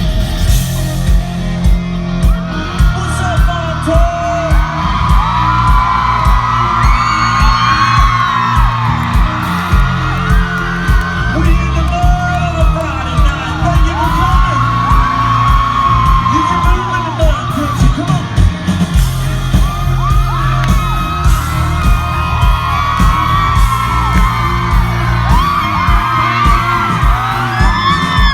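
Live country concert music: a band playing with a heavy, steady bass, with singing and a crowd yelling and whooping over it.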